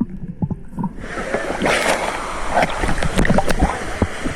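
Waterfall water rushing and splashing, with many short, sharp splashes or knocks; the steady hiss of the water comes in about a second in.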